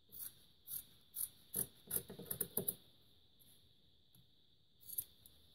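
Scissors snipping through 2-inch woven webbing: a quick run of about eight short, sharp cuts over the first three seconds, then one more near the end.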